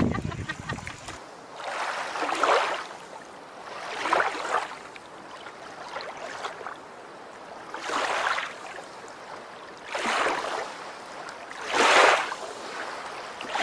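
Small waves washing in at a shoreline, a soft rush of water about every two seconds over a low steady hiss.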